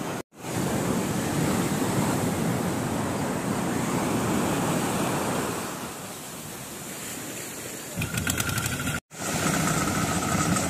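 Sea surf breaking and washing up a sand beach in a steady rush of noise that eases off for a couple of seconds past the middle. The sound drops out briefly twice.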